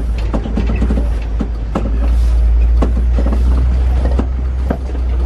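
Open-sided safari truck driving along a rough track: a steady low rumble of engine and road, with scattered knocks and rattles from the body and fittings.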